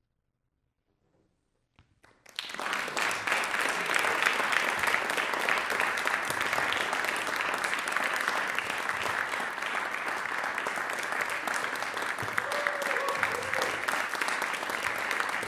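About two seconds of near silence, then an audience breaks into applause that carries on steadily.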